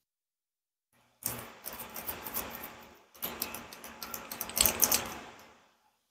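Gloved hands tossing and mixing stir-fried noodles in a plastic bowl: two spells of rapid clicking and crinkling, the second louder, with a short pause between them.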